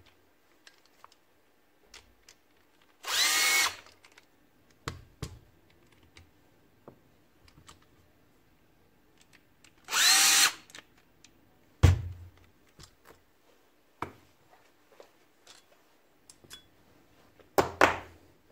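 Cordless drill-driver spinning bolts out of a VVT-i cam phaser in two short bursts, each rising in pitch as it spins up, with sharp metal knocks and clunks in between, the loudest just after the second burst.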